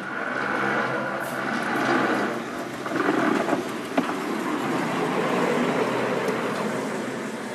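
Ex-Hagen heritage tram 337 passing close by, its wheels rolling over the rails, getting louder as it nears, with a sharp knock about four seconds in.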